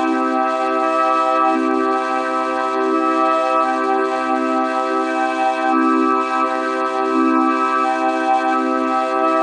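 Electronic vocoder-style synthesizer tone: a steady organ-like chord whose lowest note changes about every second or so.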